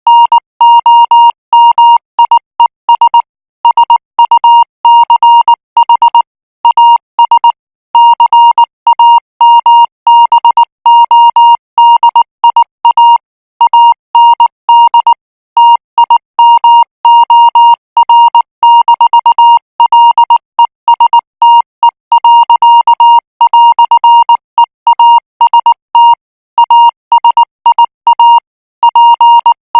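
Morse code practice signal sent at 18 words per minute: a single steady beep tone keyed on and off in short dots and longer dashes, with brief gaps between characters and words.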